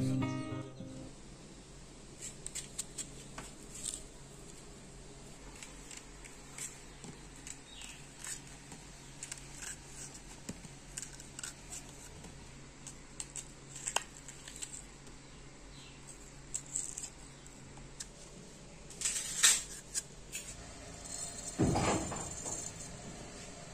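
A small knife slicing through raw onion held in the hand: a long run of short crisp cuts at an uneven pace. Near the end, a dull thump, then cumin seeds dropped into a dry iron kadai.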